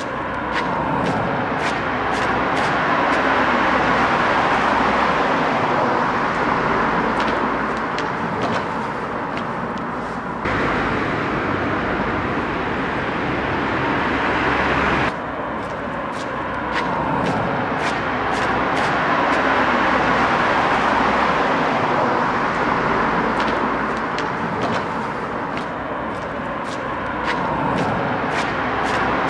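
Road traffic noise, with passing vehicles swelling and fading one after another. The background changes abruptly about ten seconds in and again around fifteen seconds.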